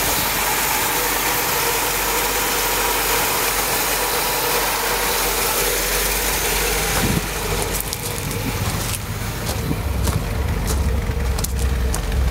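Cadillac 429 V8 idling steadily, running again after sitting for a long time. About seven seconds in the sound changes suddenly to a deeper low rumble, with scattered sharp clicks.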